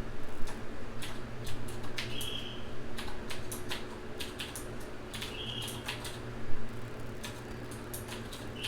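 Keys of a Qwerkywriter S retro mechanical keyboard being pressed: irregular clicky keystrokes, a few of them louder. A short high chirp repeats about every three seconds over a steady low hum.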